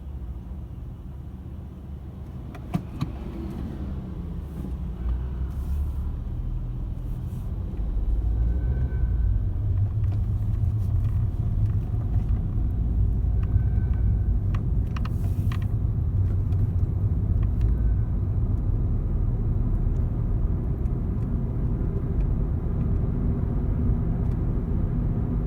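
Ford Fiesta 1.0 setting off and changing gear, a low engine and road rumble that grows louder about eight seconds in and then holds steady, with a couple of sharp clicks about three seconds in. This is the abnormal noise on pulling away and shifting that the owner has noticed.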